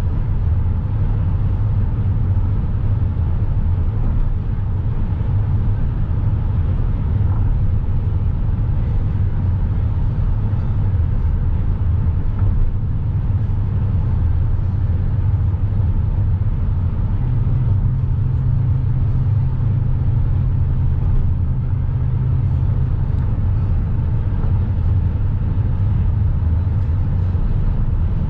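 Steady low rumble of road and engine noise inside a moving car's cabin, with a slightly higher hum joining for a few seconds past the middle.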